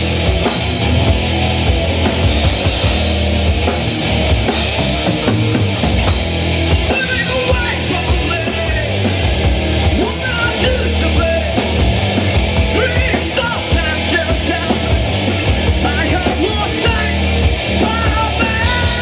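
Loud live rock band playing, with fast, driving drums and heavy distorted guitar and bass; from about seven seconds in a high melody with bending notes rides over the top.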